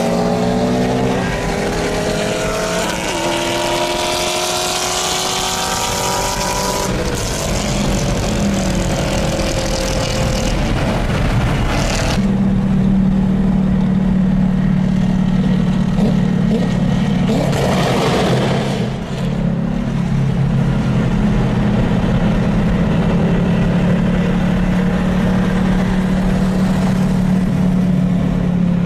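A high-performance car engine accelerating hard, its pitch climbing and dropping back several times as it shifts up through the gears. Then the engine settles into a steady drone at constant speed.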